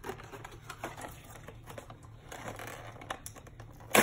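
Crinkling and rustling of paper and plastic toy packaging being handled, with many small irregular crackles and one sharp loud snap at the very end.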